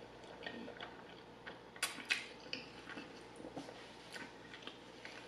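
Close-miked chewing of a mouthful of spaghetti: soft wet mouth clicks and smacks, with two sharper clicks about two seconds in.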